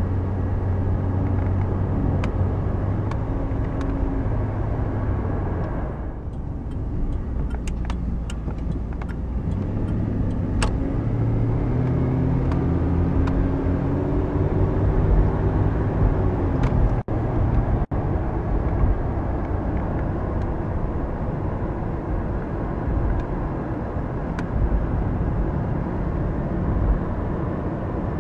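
Inside the cabin of a moving 1991 Chevrolet Caprice Classic: its 305 V8 runs under road noise, with the engine note rising as the car accelerates about halfway through. The sound cuts out for an instant twice shortly afterwards.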